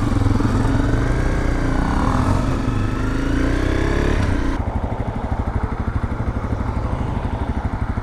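Honda CRF250L's single-cylinder dirt-bike engine running, its pitch rising and falling with the throttle along with wind noise; about halfway through the wind noise cuts off and the engine settles into a steady idle.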